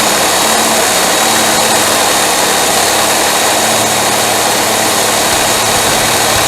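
Power saw running steadily as it cuts through a solid steel bar, with a steady, noisy grinding and no break; the blade is dull.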